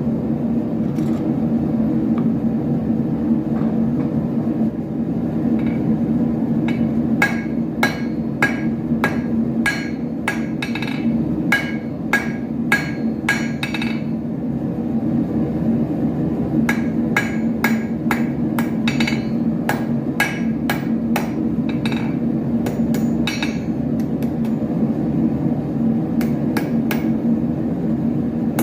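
Blacksmith's hammer striking iron on an anvil while forging an arrowhead: two runs of quick blows, about two a second, each with a short metallic ring, over a steady low hum.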